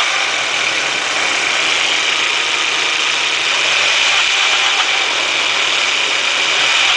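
1.8T turbocharged four-cylinder engine idling steadily with a rattle in its running note.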